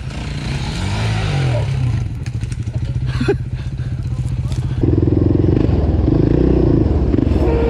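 Quad engines running, one revving up and down, with some clicks and rattles; about five seconds in a cut brings a louder engine running steadily under way, heard from onboard.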